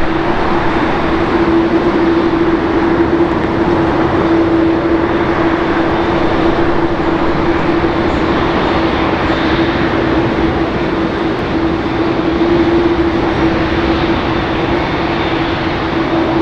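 Boeing 747-8i's four GEnx-2B turbofan engines running at low taxi thrust as the jet rolls onto the runway: a steady rushing noise with a constant droning tone.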